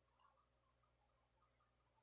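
Near silence, with a few faint clicks near the start as a small plastic action camera is handled in the hand.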